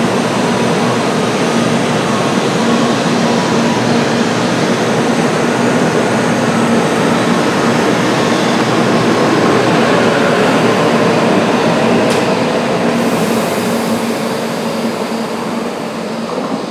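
N700A Shinkansen train running past the station platform: a steady rumble of wheels and traction gear with a low hum, fading away near the end as the last car goes by.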